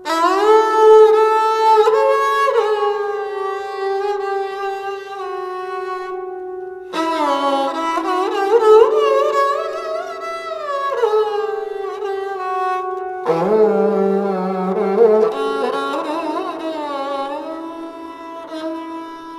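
Sarangi bowed with the traditional horsehair sarangi bow: three long phrases, starting at the beginning, about seven seconds in and about thirteen seconds in. They hold sustained notes that glide smoothly up and down between pitches over a steady lower note.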